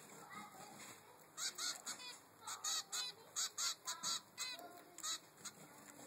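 A three-week-old zebra finch fledgling begging for food with a quick run of about a dozen short, high calls, starting about a second and a half in and stopping about five seconds in.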